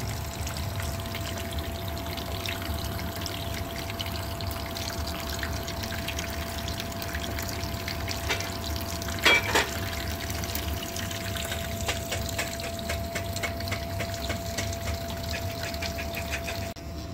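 Shower water running and splashing steadily for a parrot's bath, with a steady faint whine alongside. About halfway there are two brief loud sounds, and the water cuts off just before the end.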